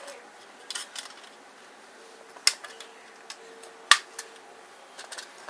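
Scattered light clicks and taps as fingers work a paper clip against an aluminium soda can, the sharpest about four seconds in.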